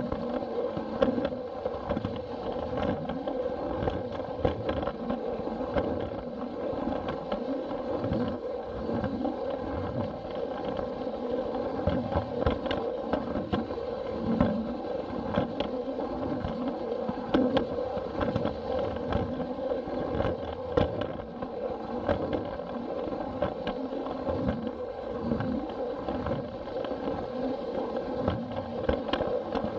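Battery-powered Plarail toy train's small motor and plastic gearbox whirring steadily, with frequent irregular clicks and rattles from the wheels running over the plastic track, picked up close from a camera car riding on the train.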